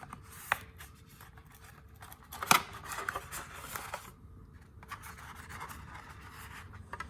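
Hands handling objects: a few sharp clicks, the loudest about two and a half seconds in, with stretches of scraping and rustling between them.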